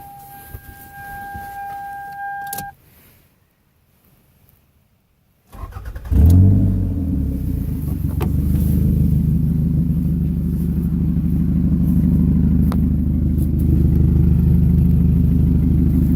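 A steady electronic warning tone for a couple of seconds, then a pause; about five and a half seconds in, the 1998 Toyota Camry's engine cranks and starts with a loud surge, then idles with a loud, steady low exhaust rumble from a leak at the flex pipe.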